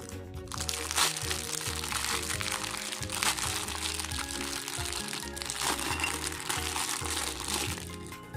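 Plastic packaging crinkling and crackling as it is handled, over background music; the crinkling stops shortly before the end.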